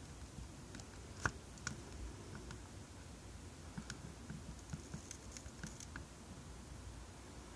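Faint scattered light clicks and taps over a low, steady rumble, with one sharper click about a second in.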